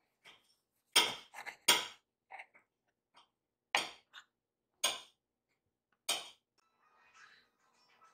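Kitchenware clinking and clattering: about eight sharp, separate knocks of utensils or dishes, irregularly spaced over six seconds.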